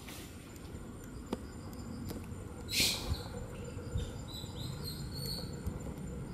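Outdoor nature ambience: insects with a steady high-pitched drone, and birds chirping a few times in the second half. A brief loud rasping burst comes about three seconds in.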